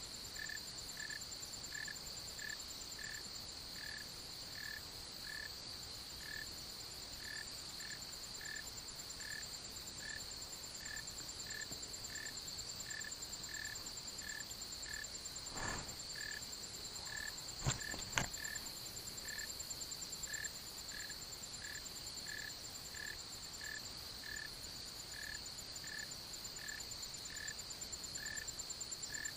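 Night chorus of insects: a steady high trill with a short chirp repeating about twice a second. A few sharp knocks come about halfway through.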